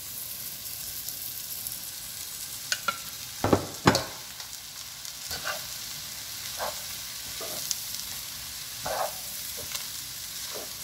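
Egg and vegetables sizzling steadily in a wok as cooked rice is tipped in and stirred through with a spatula. The spatula knocks and scrapes against the pan several times, loudest twice in quick succession about three and a half seconds in.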